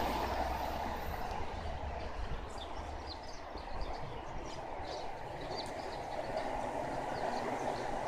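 A train running on the rails some way off: a steady rumble that eases and then grows louder toward the end, with scattered short high chirps over it.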